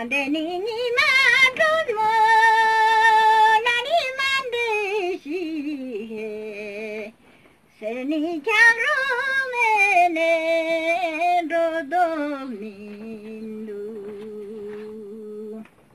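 An elderly woman singing a Ladakhi song unaccompanied, in long held, wavering notes with rising slides. Two phrases are parted by a short breath about seven seconds in, and she ends on a long steady low note.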